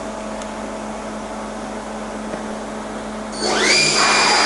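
Leadwell VMC-40 vertical machining centre: a steady machine hum, then about three and a half seconds in the spindle starts, its whine rising quickly in pitch and settling into a loud, steady high whine at 3000 RPM.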